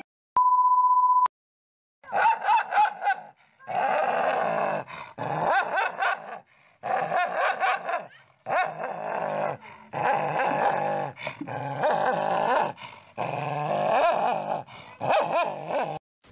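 A steady high test-tone beep lasts about a second at the start. After it, two dogs snarl and growl at each other in repeated bouts with short breaks.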